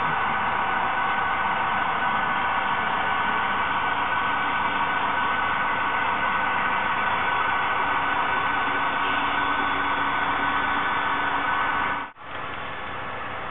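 HO-scale model diesel locomotives working together, their DCC sound decoders giving a steady, hissy diesel engine drone through small speakers. The sound breaks off briefly near the end and comes back quieter.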